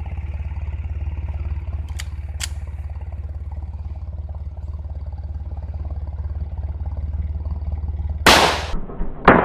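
Two handgun shots about a second apart near the end, the first with a long echoing tail, over a steady low hum; two faint clicks come about two seconds in.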